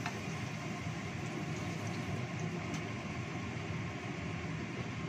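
Ground spice paste sizzling in hot oil in a wok, a steady frying hiss, while a wooden spatula stirs it with a few light taps.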